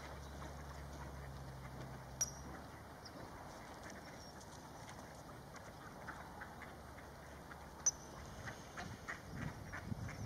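Waterbirds (ducks and coots) feeding on ice: a scatter of soft pecking taps that gets busier near the end, with two sharper clicks and a faint low hum that fades out in the first few seconds.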